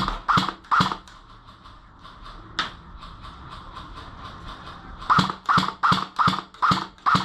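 Airsoft gun firing single shots: three quick shots, one more a couple of seconds later, then a steady run of about seven shots at roughly two a second near the end.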